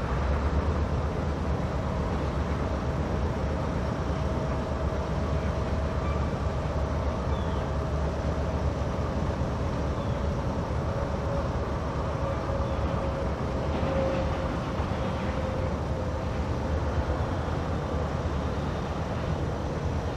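Diesel locomotive running with a steady low drone while handling a stone train, with a faint steady whine above it.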